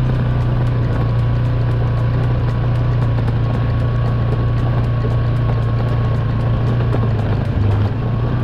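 ATV engine running steadily while riding a rough trail, a constant low drone with a faint steady whine above it. The engine note shifts briefly about three-quarters of the way through.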